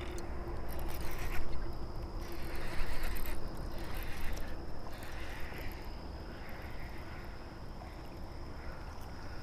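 Baitcasting reel being cranked while a hooked fish is fought in; busier during the first few seconds, then easing.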